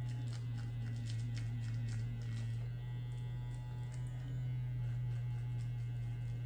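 OA Pureline silicone vibrating facial cleanser buzzing with a steady low hum while pressed and moved against the skin around the nose, with faint irregular ticks over it.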